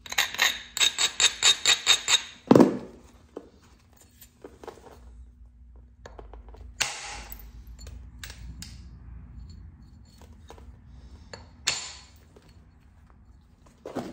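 An abrader stone rubbed rapidly back and forth along the edge of a heat-treated chert blade, a run of sharp clinking scrapes at about five strokes a second for two seconds, dressing the edge for knapping. A single dull knock follows, then quiet handling with two brief swishes.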